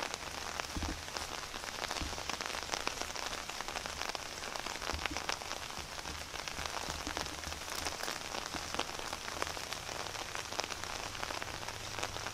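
Footsteps crunching through dry leaf litter and twigs on a woodland floor: a steady, dense crackle of small clicks and rustles.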